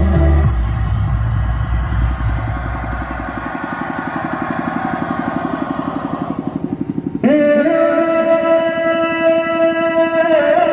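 Music through a large outdoor PA sound system fades out, and a rhythmic pulsing buzz grows for a few seconds. About seven seconds in, a loud held electronic keyboard tone starts abruptly with a short upward slide, then steps up in pitch near the end.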